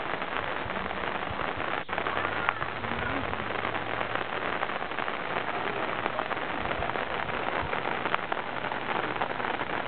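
Steady rain falling on trees and tiled roofs: a dense, even patter of many small drops.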